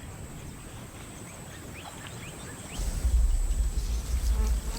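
Bush ambience: a steady high insect whine and a few short rising bird chirps, then a loud low rumble from about three seconds in.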